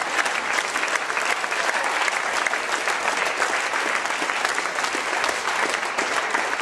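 Audience applauding: dense, steady hand-clapping from a hall full of people.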